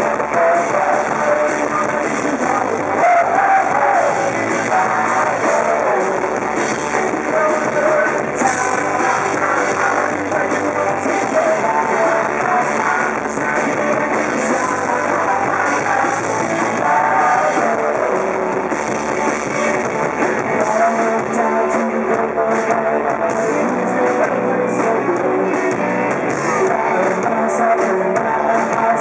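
Rock band playing live, with electric guitar, in a low-quality, muddy recording.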